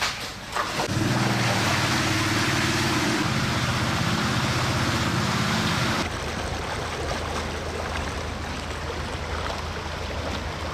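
Small portable petrol-engine water pump starting up about a second in and running steadily, with water rushing as it pumps out floodwater. About six seconds in, the engine note gives way to a lower, steady hum under rushing water.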